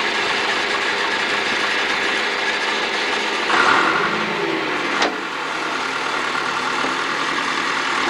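John Deere 401D backhoe engine running steadily, swelling louder for about a second around three and a half seconds in. A single sharp knock comes about five seconds in.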